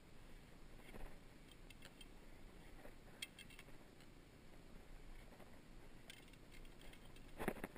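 Faint clicks and scrapes of arrows being pulled from a foam 3D coyote target, with the shafts ticking against each other. There is a louder rubbing scrape near the end.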